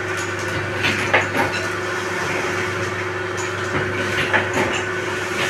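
Steady electric hum of a paper plate and bowl making machine, with a few light clicks and rattles of foil bowls and plates being handled.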